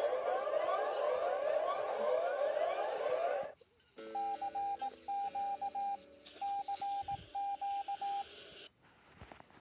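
Emergency alert alarm tones: an electronic siren sound of repeating rising sweeps cuts off suddenly about three and a half seconds in. After a short pause come four quick groups of short, identical beeps over lower steady tones.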